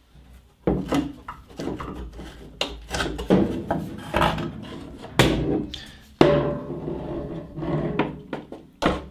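Handling noise on a metal lathe: irregular knocks, clatters and scraping as parts are moved by hand, with sharp strikes about five and six seconds in.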